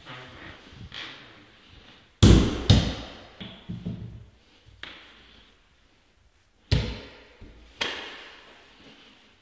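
A series of loud knocks and thuds: two close together about two seconds in, a few softer ones after, and two more loud ones near the end.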